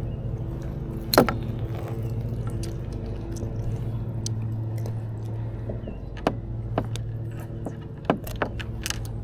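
Sharp clicks and clinks, like fishing gear being handled in a plastic kayak: one loud click about a second in and a cluster near the end. Under them runs a steady low engine-like hum.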